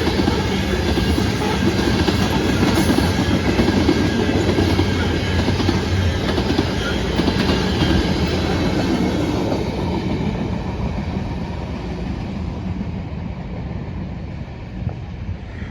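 A train rolling past a road crossing, a steady heavy rumble of wheels on rails that grows quieter over the last few seconds as it moves away.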